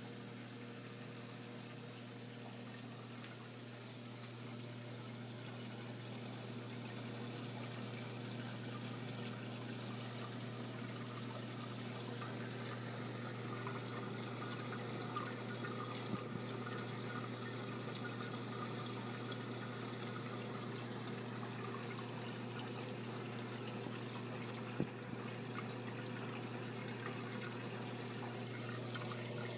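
Water trickling and splashing through a reef aquarium sump and refugium, over a steady low hum from the sump's pumps; it grows a little louder a few seconds in.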